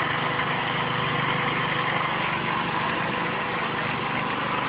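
A portable concrete mixer's small engine running steadily.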